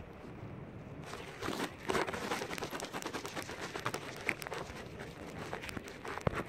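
Handling noise on a phone's microphone: dense rustling, crackling and light knocks as the phone is moved about, over a low wind hiss.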